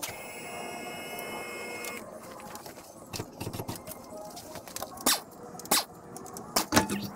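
Portable scissor car lift's hydraulic pump unit whining steadily for about two seconds as the car is raised, followed by scattered metallic clanks and knocks, the loudest three in the last couple of seconds.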